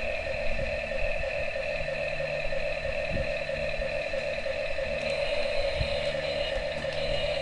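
Small electric motor and gears of a toy excavator, whirring steadily at one even pitch.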